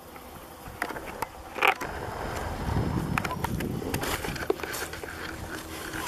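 Footsteps through dry grass and leaf litter, with irregular crackles and scrapes, and rustling handling noise on the camera's microphone that grows louder about two seconds in.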